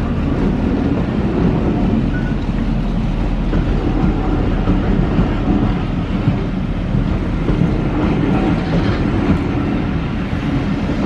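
A train running on the line with a steady, continuous noise.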